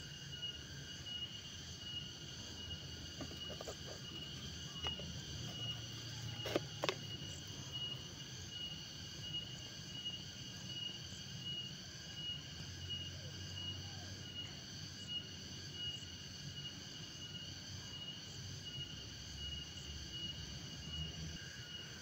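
Steady high-pitched insect trill, rapidly pulsing, with two sharp clicks close together about six and a half seconds in.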